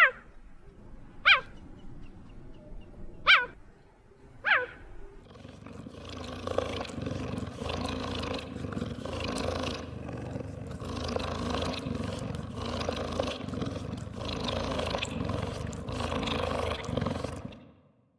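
A wild cat calling: four short, sharp cries falling steeply in pitch over the first five seconds, then a long, continuous harsh call that stops shortly before the end.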